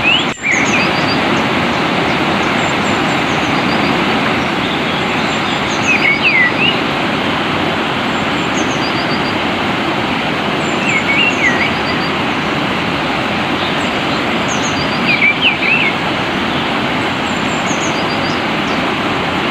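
Flowing water rushes steadily while a bird sings short whistled phrases every four to five seconds, with faint high chirps between them. The sound briefly cuts out just after the start.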